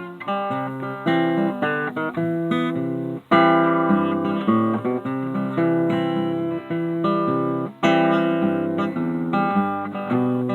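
Acoustic guitar playing an instrumental break in a country folk song, with picked notes and strummed chords and no singing.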